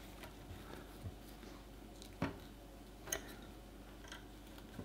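Small hex key clicking against the set screws of a 3D printer's Z-axis lead-screw coupler as they are tightened: a few faint, sparse metal ticks, the clearest about one, two and three seconds in.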